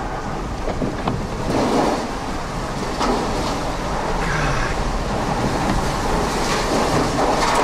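Hurricane wind and driving rain buffeting a vehicle, heard from inside it: a continuous rush of noise that swells in gusts a couple of times.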